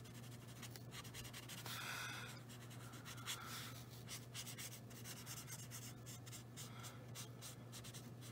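Faint scratching and rubbing of an alcohol marker's nib on paper, in many short, quick strokes as the colors are blended together.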